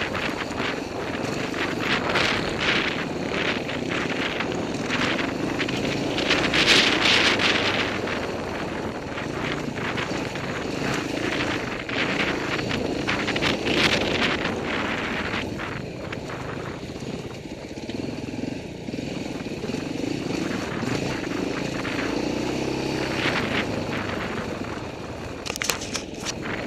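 Dirt bike engine riding along a rough trail, its pitch rising and falling as the throttle opens and closes, with wind buffeting the microphone and knocks from the bumpy ground.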